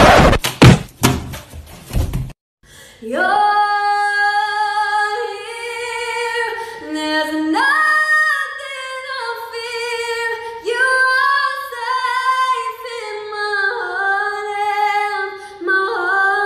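A burst of loud, noisy sound cuts off abruptly about two seconds in. After a short gap, a single high voice sings unaccompanied, holding long notes and sliding between pitches.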